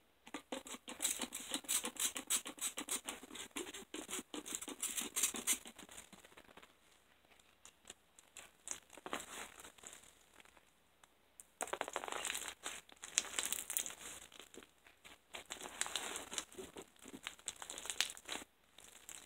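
Bead-filled slime being stretched and squeezed by hand while activator is worked into it, crackling and crinkling with many tiny pops. It comes in two spells with a quieter pause in the middle.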